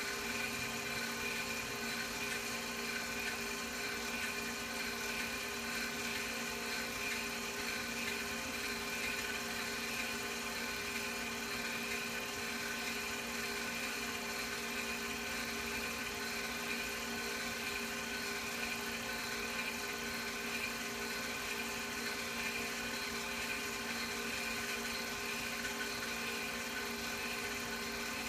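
Film projector running: a steady mechanical whir with several fixed tones that does not change.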